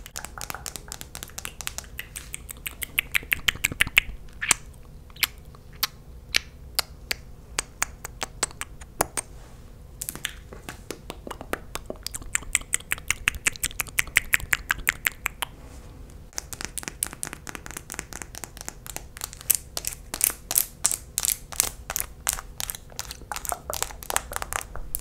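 Close-miked ASMR mouth sounds: fast runs of wet clicks and smacks from lips coated in sticky lip gloss, in bursts with brief pauses.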